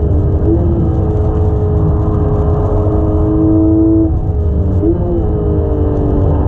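Porsche 991.1 GT3 RS's naturally aspirated 4.0-litre flat-six heard from inside the cabin under load. The engine note climbs steadily in pitch, dips briefly about four seconds in, then climbs again, over a steady low road and tyre rumble.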